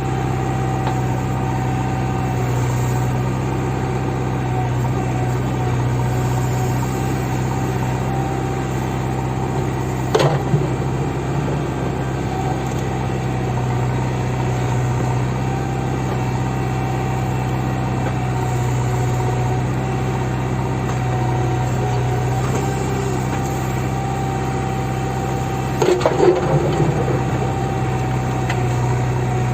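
Backhoe loader's diesel engine running steadily, with a constant low hum and a steady higher tone over it. Two short knocks with a brief clatter come through, about ten seconds in and again near the end.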